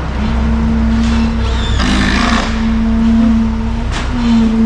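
Diesel engine of heavy construction machinery running steadily with a low rumble and a held whine. A short hiss comes about two seconds in.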